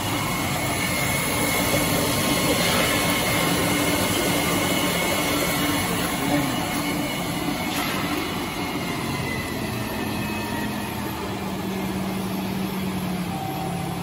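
JX-3 high shear mixer (3 kW motor at 3000 rpm) running steadily with its rotor churning water in a stainless steel tank: a constant motor hum with a few held tones over the churning, easing slightly about halfway through.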